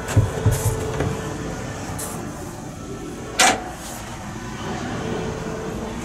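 Steady low hum with a faint steady tone, a few low thumps in the first second, and one sharp click about three and a half seconds in as the wooden door to the boat's toilet compartment is opened.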